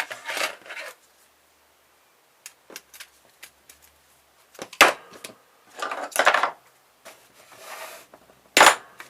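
Small metal and plastic parts of a car stereo clicking, scraping and rattling as it is taken apart by hand, with two loud sharp knocks, about five seconds in and near the end.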